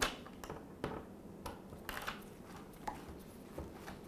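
Faint, irregular clicks and scrapes of a screwdriver backing out the Phillips screws that hold a dishwasher's dispenser assembly in the metal inner door panel.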